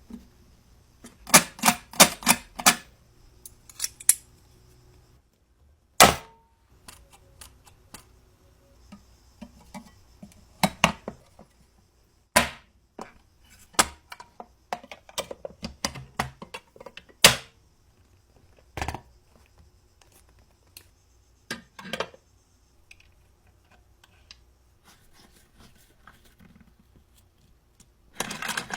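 Irregular sharp clicks and knocks of small metal parts and hand tools being handled on a small antique sewing machine under restoration. There is a quick run of about five clicks near the start, then single knocks every few seconds, and a denser clatter at the end.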